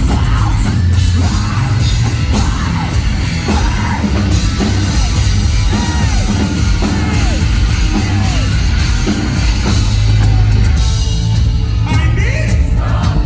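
Heavy metal band playing live: loud drums and a heavy, booming low end, with sung and shouted vocals over them.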